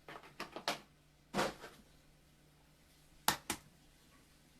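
A few light taps and clinks of kitchen utensils on bowls, with two close together near the end.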